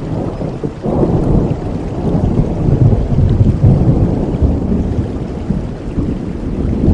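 Rolling thunder rumbling over steady heavy rain. The rumble swells about a second in and stays heavy through the middle before easing slightly near the end.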